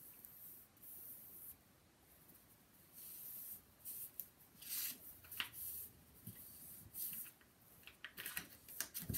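Hands rubbing and smoothing a glued, folded black cardstock page on a cutting mat: several short bouts of faint paper rustling and rubbing, with a light tap about five seconds in.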